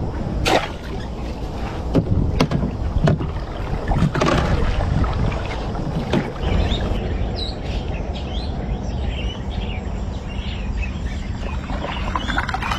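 Steady low rumble on a small boat on open water. A few sharp knocks fall in the first six seconds, and short high bird chirps come from about seven seconds in.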